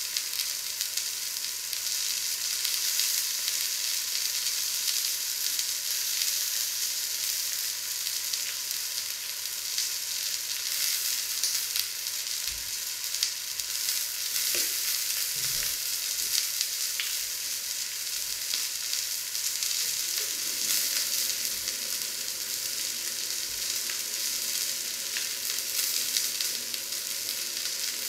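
A piece of raw meat searing in a hot black steel pan, sizzling steadily with small crackles from the spitting fat.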